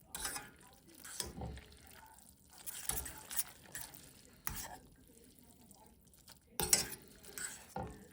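Dishes and utensils being handled in a kitchen: irregular clinks and clatters in short bursts, the loudest a little before the last second.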